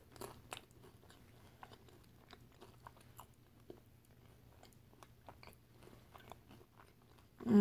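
Faint chewing of a mouthful of nachos, tortilla chips with melted cheese: soft irregular crunches and wet mouth clicks, with fingers licked clean about four seconds in.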